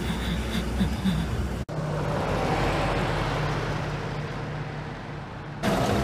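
Military trucks driving in convoy: a low engine rumble that cuts off abruptly, then a steady engine drone with tyre-on-dirt noise. About a second from the end it jumps to a louder, closer engine and road noise as the trucks come near.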